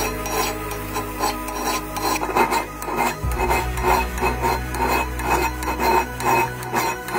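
Rusty iron of an old pipe wrench being scrubbed by hand with an abrasive in even back-and-forth strokes, about two to three a second.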